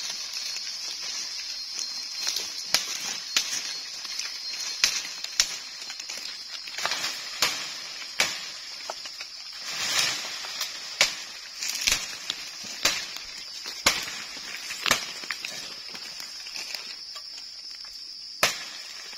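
Rattan cane being pulled down through the forest canopy: irregular sharp cracks and snaps of stems and branches with rustling leaves, a dozen or more over the stretch, some louder than others. A steady high-pitched hum runs underneath.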